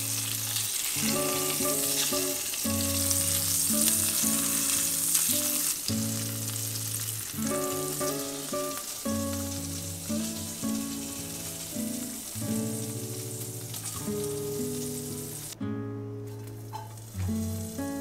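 Food frying in hot oil, a steady sizzle that is loudest over the first few seconds, thins out, stops about three-quarters of the way through and starts again near the end. Soft background music plays underneath.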